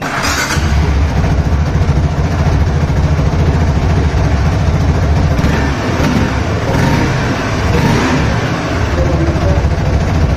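KTM 390 Adventure's 373 cc liquid-cooled single-cylinder engine running through its stock exhaust with a steady low thump. It is revved briefly a few times past the middle.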